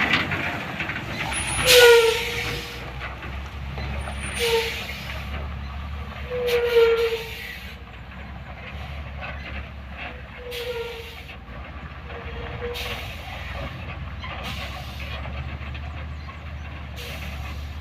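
Heavy truck diesel engine running steadily under load on a climb, with about seven short hissing bursts of air over it. The loudest burst comes about two seconds in.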